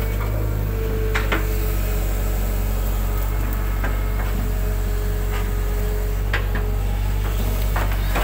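Hitachi hydraulic excavator running steadily under load, a low diesel drone with a held hydraulic whine, as the bucket digs and lifts wet mud from a ditch. A few light knocks sound through it.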